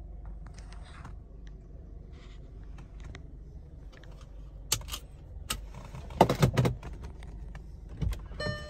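Scattered clicks and taps and a short burst of rattling inside a car cabin, over a steady low hum.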